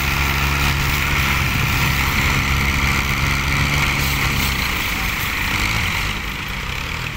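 Several diesel farm tractors, led by a Ford 4400, running hard under heavy load as they strain to drag a stuck, heavily loaded trailer through deep sand. The engine note loses its steadiness a couple of seconds in and eases slightly near the end.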